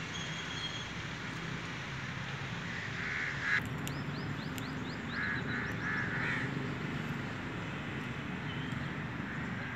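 Harsh bird calls in short bursts, a few in a row about three seconds in and again around five to six seconds in, with a quick run of small high chirps from a smaller bird between them, over a steady outdoor background.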